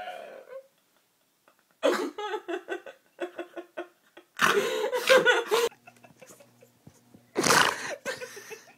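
People laughing and squealing in short, loud bursts, after a held vocal note that fades out about half a second in.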